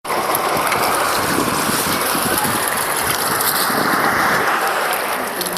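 Steady rush of moving water along the shore, with wind buffeting the microphone in uneven gusts.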